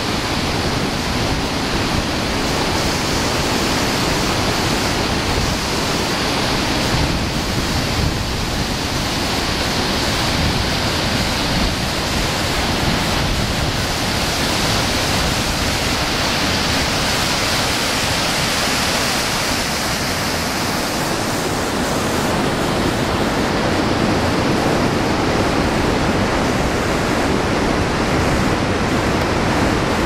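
Loud, steady rush of falling water from a large waterfall and white water pouring between boulders, with no let-up; its tone shifts slightly about two-thirds of the way through.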